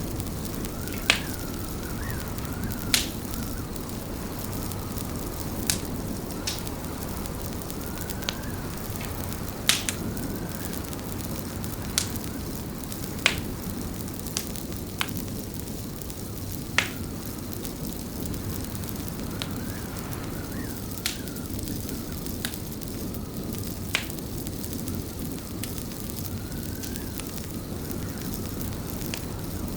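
Wood fire in a fireplace crackling: sharp pops every one to three seconds over a steady low rumble. Faint wavering wind whistle comes and goes in the background.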